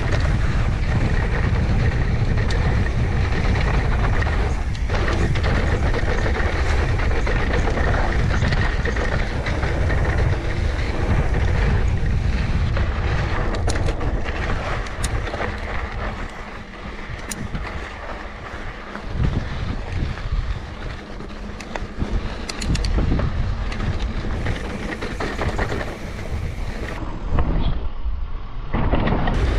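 Mountain bike riding down a dirt trail, heard through an action camera's microphone: a steady rumble of wind on the microphone and tyres on the ground, with the bike's chain and frame rattling and clicking over bumps. It eases a little in the middle.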